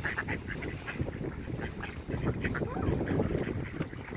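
A flock of mallards quacking, many short calls overlapping in quick succession.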